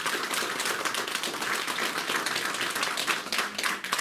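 Small audience applauding, dense clapping of many hands at once.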